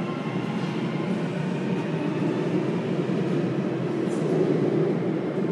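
Xi'an Metro Line 2 subway train pulling out of an underground station behind platform screen doors: a steady rumble of the cars rolling past, building to its loudest about four to five seconds in as the last car goes by.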